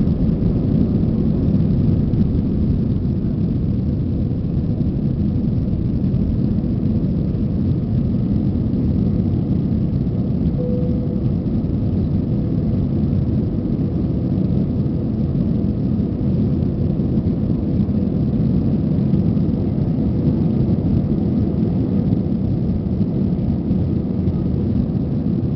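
Jet airliner engines at takeoff power, a steady low rumble heard inside the cabin through the takeoff roll, liftoff and climb-out.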